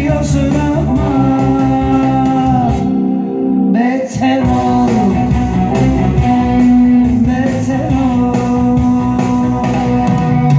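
Live music from a keyboard player who sings: a sung vocal over keyboard accompaniment with a plucked-string melody line and a steady bass and beat. The bass and beat drop out briefly about three seconds in, then come back.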